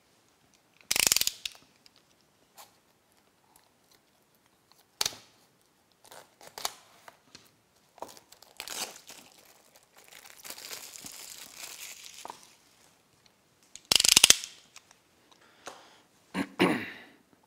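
Unboxing a small cardboard product box and its plastic-bagged case parts: sharp clicks and knocks of card and plastic being handled, the loudest about a second in and near the end, with a stretch of plastic rustling in the middle.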